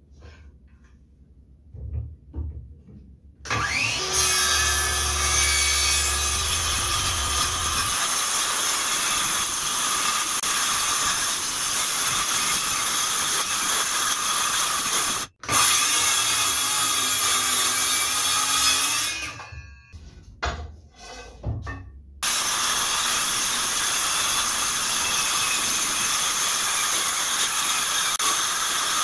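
DeWalt cordless circular saw running and cutting through a laminated chipboard sheet, a loud steady sawing noise. It starts after a few seconds of light handling clicks, breaks off for a few knocks about two-thirds of the way in, then cuts steadily again.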